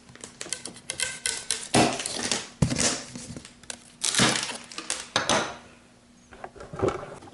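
Cardboard box being opened by hand: a run of sharp scraping, crinkling and rustling noises, each lasting up to about half a second, with a few clicks between them.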